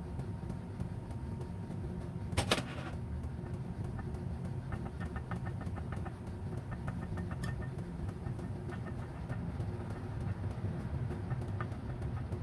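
A whisk ticks repeatedly against the side of a glass mixing bowl as batter is whisked, from about four seconds in. Earlier, about two and a half seconds in, there is a single sharp knock. A steady low hum runs underneath throughout.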